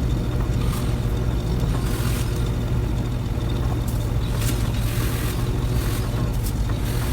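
An engine running steadily at a low, even speed, with a few short sharp snaps or clicks over it.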